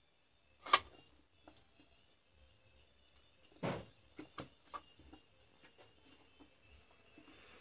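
Scattered clicks and knocks of a cordless drill battery pack's plastic terminal block and wired lithium-ion cells being handled and set down on a workbench. The loudest is a sharp click about a second in, then a duller knock near the middle and a few light ticks after it.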